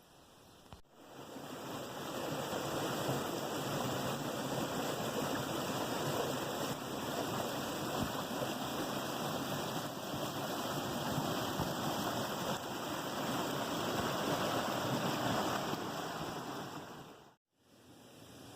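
Steady rush of running water, starting abruptly about a second in and stopping abruptly near the end.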